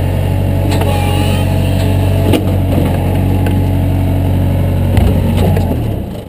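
A large engine running with a steady low drone, with a few sharp metal clanks over it. It is shut off near the end and runs down to quiet.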